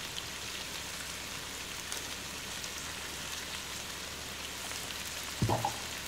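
Sliced bell peppers and onions sizzling steadily in hot sesame oil in a wok, with a brief louder sound about five and a half seconds in.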